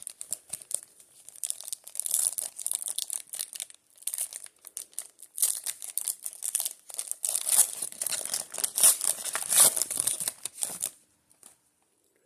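A Panini Prizm football card pack wrapper being torn open and crinkled, in several spells of crackling that stop a little before the end.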